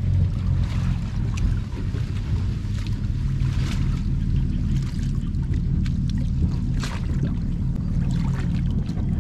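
Water sloshing and splashing as a person wades chest-deep through floating water hyacinth and pulls at the plants, with a few sharper splashes. A steady low hum runs underneath.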